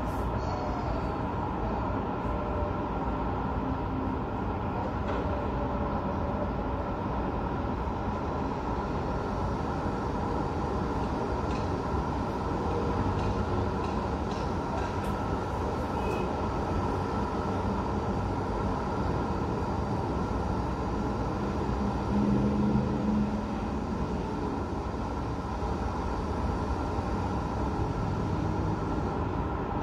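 Steady hum of distant city road traffic heard from a high window. It swells briefly with a low engine tone about two-thirds of the way through.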